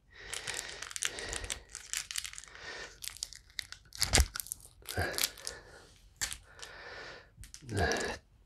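Ration packaging crinkling and tearing as a coffee packet is got out and opened. It comes in irregular bursts, with a sharp snap about four seconds in.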